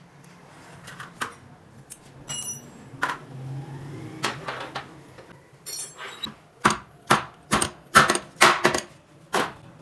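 Sharp metal-on-metal knocks and clinks as a fork tube with a steel collar is tapped down into a Honda CG125 front fork slider while the oil seal's lock is fitted. The knocks are scattered at first, with a couple of ringing clinks. In the last few seconds they come as a quick run of about eight louder knocks.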